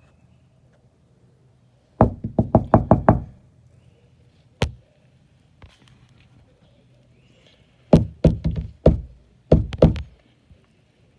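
Knocking in quick runs: about seven fast knocks, one lone knock, then two more short runs of three or four.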